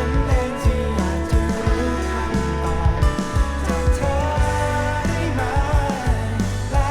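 Thai rock song played from a vinyl record: a full band with drums, bass and guitars, and a sung vocal line wavering in pitch about four seconds in.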